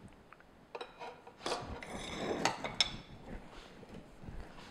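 Stainless steel stand-mixer bowl being unlocked and lifted off the mixer: a few light clicks, then metal clinking and rubbing for about a second and a half, then softer handling noises.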